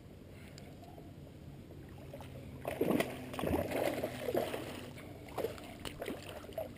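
Water splashing as a hooked largemouth bass is fought up to a kayak, loudest from about three seconds in, with a few sharp knocks near the end.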